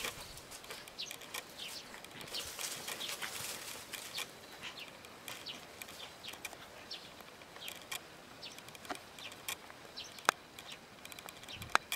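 Small birds chirping intermittently in short high calls, with two sharp clicks near the end.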